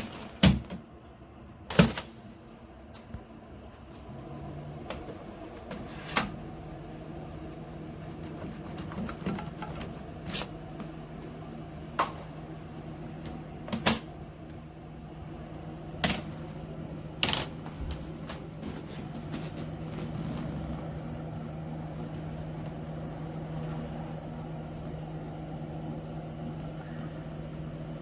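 Carry-on suitcase's spinner wheels rolling across a hard floor, a steady low hum with sharp clacks every couple of seconds.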